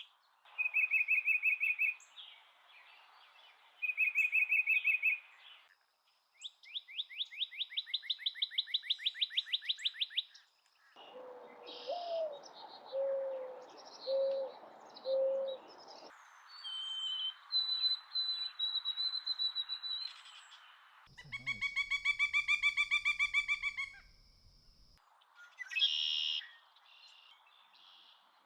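A run of different bird calls played one after another, each with its own background that cuts in and out. In turn there are two short rapid trills, a long fast series of repeated notes, five low hoots, high thin whistles, a long harsh call, and short chirps near the end.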